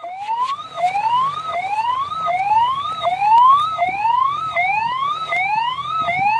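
A siren wailing in repeated rising whoops: each one climbs in pitch for most of a second, then drops back at once, about eight times in a row.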